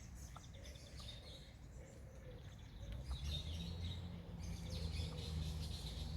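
Small garden birds chirping and twittering in short repeated notes, over a low rumble that gets louder about halfway through.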